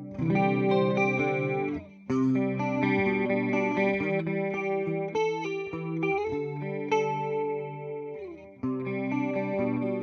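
Electric guitar played through a Boss CE-2 analog chorus pedal: sustained chords and single notes with a shimmering chorus. The playing dips briefly about two seconds in and again near the end before new phrases start.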